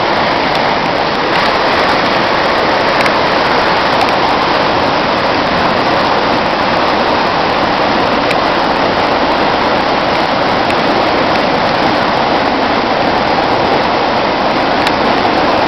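Muddy floodwater rushing down an overflowing canal in a loud, steady torrent.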